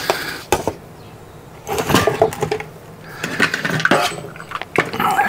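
Irregular clinks and taps of small metal parts being handled as screws are picked out.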